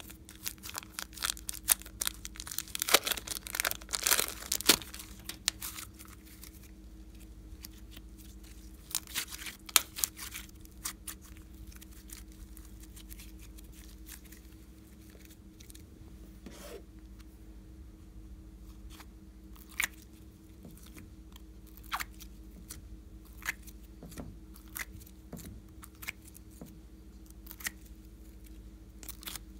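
Glossy slime being squeezed and kneaded by hand, sticky crackling and popping in a dense run for the first several seconds, then scattered single pops and clicks.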